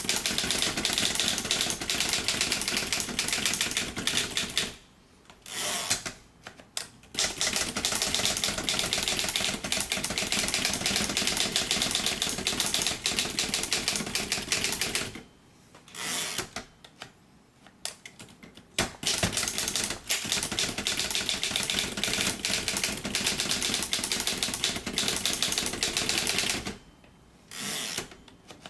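1938 Seidel & Naumann Erika typewriter being typed on: a fast, continuous clatter of keystrokes, broken by three short pauses, about five, fifteen and twenty-seven seconds in.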